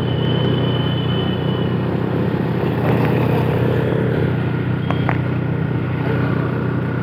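Steady motor traffic noise: the continuous hum of motorbike and car engines running, with a few brief high tones and faint clatters over it.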